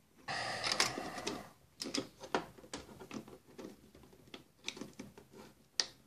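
Small screwdriver prying at a plastic keycap on an electronic typewriter. A scraping rattle lasts about a second, then light plastic clicks and ticks come at irregular intervals as the key is worked loose.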